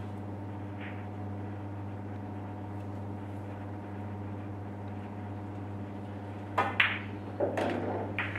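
Pool shot about two-thirds in: sharp clicks of cue tip on cue ball and ball striking ball, followed by balls rolling on the cloth and further knocks. A steady low hum runs underneath throughout.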